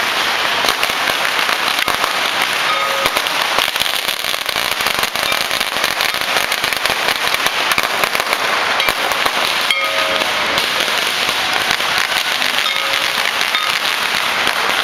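Strings of firecrackers crackling continuously in a dense, rapid barrage of bangs.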